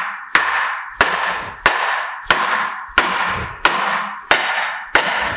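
A hammer striking the bolts on a Ferguson FE35 tractor's front axle, about eight evenly paced blows, each leaving a short metallic ring. He is knocking out old, tight bolts to free the axle.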